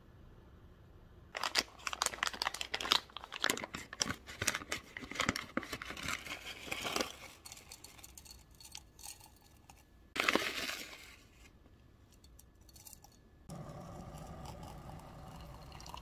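Foil tea pouch crinkling and dry loose tea rustling as it is scooped out with a wooden spoon, with a short louder rustle about ten seconds in. Near the end, water is poured in a steady stream through a bamboo tea strainer into a glass mug.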